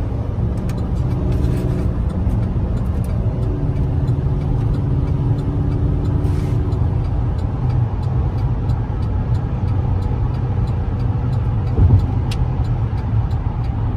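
Chevrolet 2500 pickup truck at highway speed, heard from inside the cab: steady engine drone mixed with road and wind noise, the engine note shifting pitch a few times. A single knock is heard near the end.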